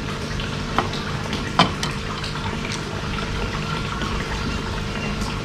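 Steady rush of water at a koi pond with a faint steady hum, and two light clicks about a second and a second and a half in from a screwdriver working the screws of the plastic filter cover on a Resun LP60 aerator.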